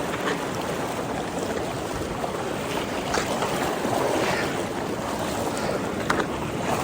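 Vallecito Creek running high and fast: a steady rush of water.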